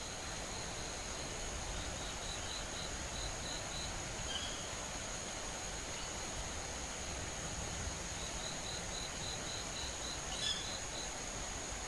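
Two runs of short, evenly spaced high-pitched notes, about three or four a second, from an unidentified dusk-flying bird that the recordist wonders may be a young owl. A single sharper, louder call comes near the end, over a steady high-pitched insect whine.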